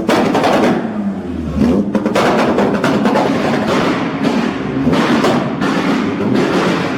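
Car engine revving, its exhaust giving off rapid, irregular crackles and pops.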